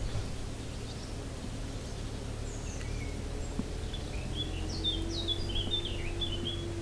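Small birds chirping several times in the second half, over a steady low background rumble; a faint steady hum comes in about halfway through.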